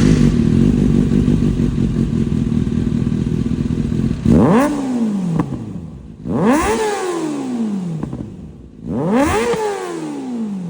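Kawasaki ZX-6R inline-four through a LeoVince aftermarket exhaust, running steadily, then revved in three quick throttle blips about four, six and nine seconds in, each rising sharply and falling back down.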